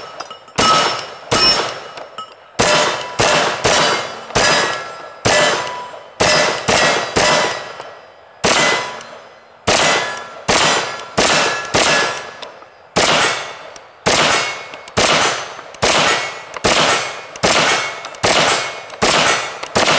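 M1 carbine in .30 Carbine firing about thirty semi-automatic shots at a steady pace, roughly one every two-thirds of a second, each followed by the ring of struck steel plate targets. The rifle runs the whole magazine without a stoppage: the failures to extract came from copper buildup in the chamber, now cleaned out.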